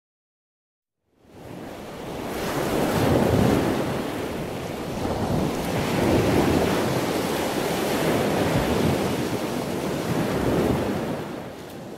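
Ocean waves washing in slow swells, fading in about a second in and fading out near the end.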